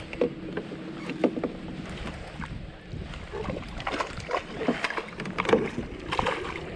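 A bass splashing in a landing net as it is scooped from the water beside a kayak, with the net and gear knocking and clattering against the kayak, most of the knocks falling in the second half.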